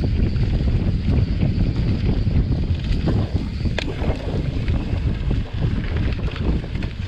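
Mountain bike rolling fast over a dirt trail covered in dry fallen leaves: a steady rumble of tyres, with wind buffeting the microphone and scattered ticks and rattles from the bike. One sharper click comes a little before the four-second mark.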